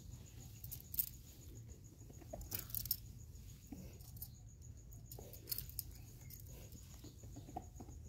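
Hand mixing a crumbly potting mix of soil, cocopeat and charcoal on a hard floor: faint, scattered rustling and scratching of soil and grit, with a few louder scrapes.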